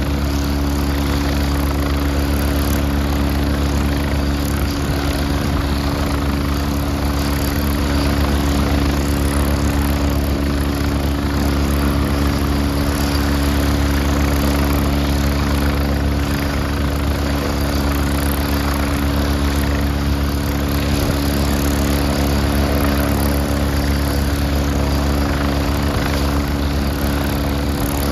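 Leonardo AW109SP twin-turbine helicopter running on the pad with its main rotor turning, not yet lifting off. A steady, unchanging drone of rotor and turbine engines.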